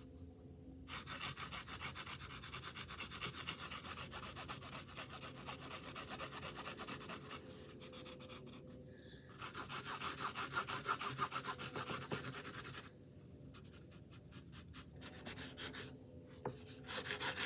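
Quick back-and-forth colouring strokes scratching on a canvas, in runs of a few seconds with short pauses between.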